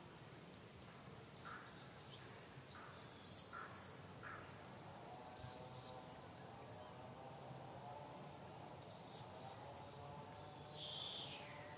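Faint forest ambience: a steady high insect drone, with scattered short chirps and a few brief faint calls.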